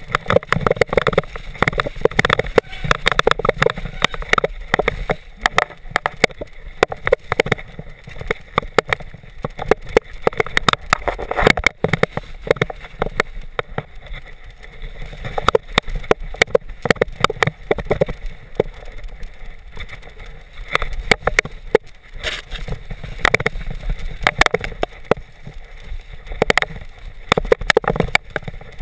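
Specialized Big Hit freeride mountain bike descending a rough, muddy trail, heard through a chest-mounted action camera: constant rattling and clattering from the bike over the bumps, with many sharp knocks, under tyre and wind noise.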